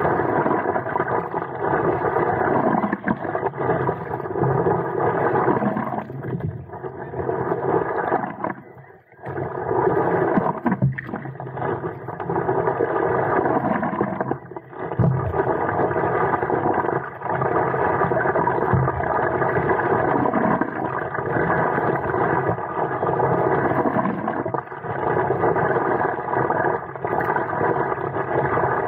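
Muffled rushing of wind and water on a camera fixed to the nose of a stand-up paddleboard, with the paddle swishing through the water again and again.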